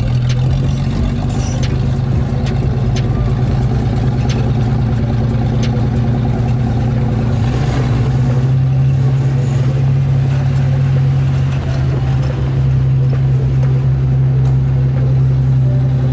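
A vehicle engine running at a steady speed on a dirt road, a continuous drone that holds nearly the same pitch throughout, with scattered faint ticks over it.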